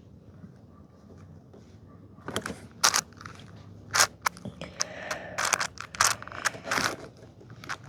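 Plastic 6x6 puzzle cube being turned by hand: quick clicks and scraping of its layers, in bursts that start about two seconds in.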